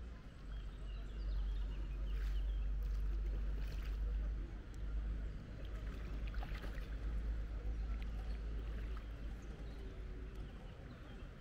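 Kayak on calm river water: a steady low wind rumble on the microphone, with a few soft paddle splashes and drips.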